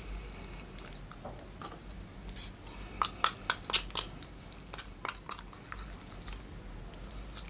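A knife and fingers working raw chicken meat off the bone: faint wet squishing, with a cluster of short clicks about three to four seconds in and a few more around five seconds.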